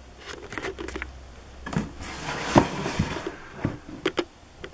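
A cardboard fireworks selection box being handled: rustling and scraping of cardboard and packaging, with several short knocks. The loudest knock comes about two and a half seconds in.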